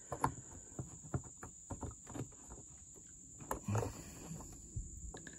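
Small irregular plastic clicks and knocks as a hand fumbles a wiring-harness pigtail connector onto the back of a 12-volt accessory outlet behind an ATV's plastic panel, the connector not yet snapped home. A steady high insect trill runs underneath.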